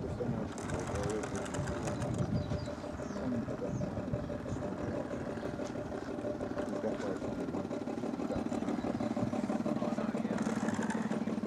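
A radio-controlled model boat's motor running with a steady hum that gets louder over the last few seconds as the boat comes close.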